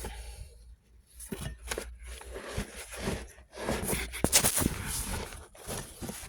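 Hands rummaging through a case of jigsaw blades: irregular clicks, rattles and scraping as the contents are moved about.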